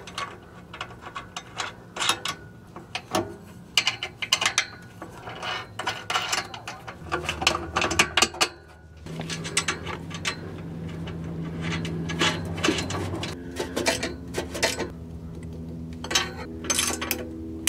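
Socket ratchet clicking in short irregular runs as the nuts on an exhaust pipe flange are run down and tightened, with metal parts clinking. A steady low engine drone sounds in the background, its pitch shifting a few times.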